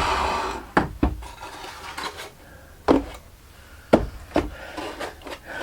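Wooden resonator guitar parts being worked on a bench: a stretch of scraping or rubbing on wood at the start, then several sharp wooden knocks as the piece is handled.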